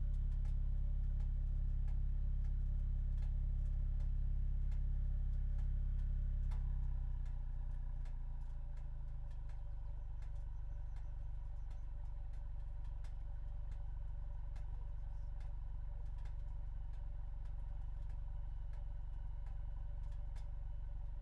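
Mercedes-AMG A35's turbocharged four-cylinder engine and exhaust running steadily with a deep, even sound and no revving; it drops a step quieter about seven seconds in and holds there.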